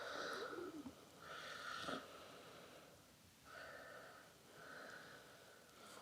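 Hands sliding and rubbing over bare skin in slow back-massage strokes: four faint swishing strokes, each about a second long.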